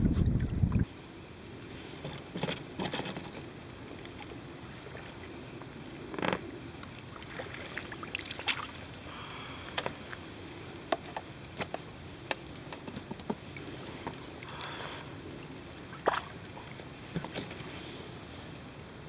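Water sloshing and lapping around a small pontoon boat, with scattered short splashes and knocks. A heavy wind rumble on the microphone stops about a second in.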